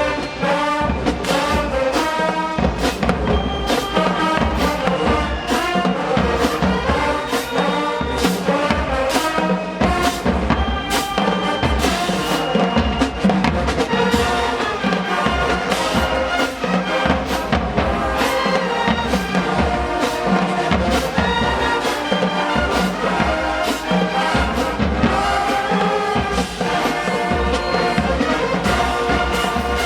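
HBCU marching band playing: brass section of trumpets and trombones over a steady beat of bass drums and snare and cymbal hits.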